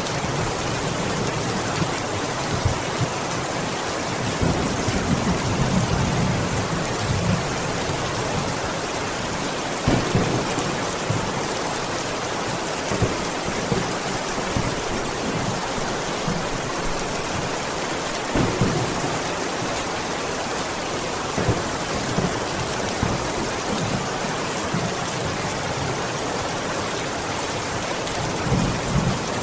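Heavy rain falling steadily on a window, with low rumbles of thunder swelling up every several seconds.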